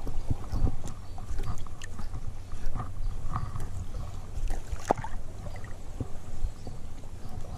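Shallow seawater lapping and sloshing at the water surface, with small irregular splashes and knocks, one sharper near the middle.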